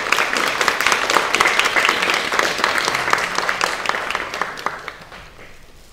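Audience applauding: dense clapping that thins out and dies away about five seconds in.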